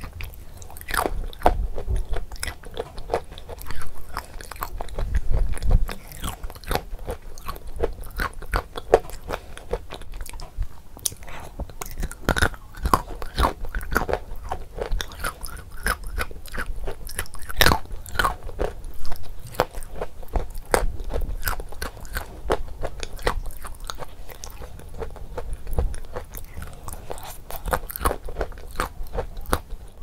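Biting and chewing pieces of Ural clay: a run of crisp crunches that goes on throughout.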